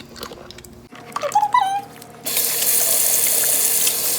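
Sink tap turned on about two seconds in, with water running hard and steadily into the basin.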